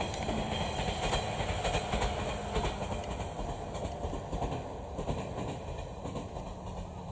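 JR 719 series electric train running along the track, its rumble fading gradually as it moves away.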